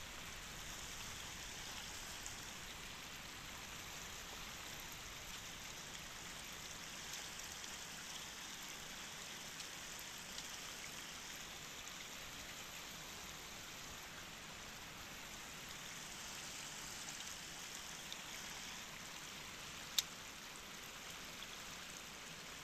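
Shallow river water running steadily over rocks in a riffle, an even rushing hiss. A single sharp click about 20 seconds in.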